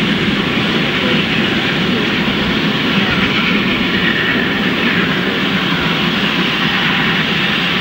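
Steam locomotive running on rails, heard close up from beneath its frame: a steady, loud rumble and clatter of the driving wheels and side rods.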